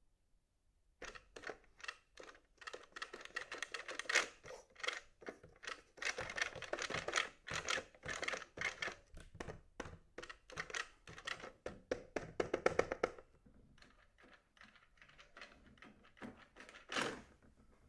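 A Bop It! Beats toy being tapped rapidly on its top drum pad: a dense run of taps and short electronic drum hits starting about a second in, thinning out after about thirteen seconds, with one louder hit near the end.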